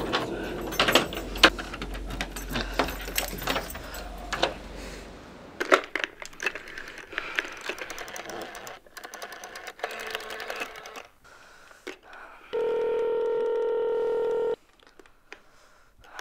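A phone being handled and dialled, with a run of irregular clicks and taps, then a steady telephone tone sounding in the handset for about two seconds near the end. A low drone sits under the first few seconds.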